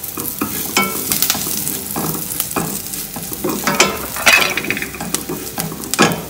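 Curry leaves, crushed shallots, garlic and chilli flakes sizzling and crackling in hot oil in a stainless steel pan. A wooden spatula stirs them, scraping across the pan in short irregular strokes.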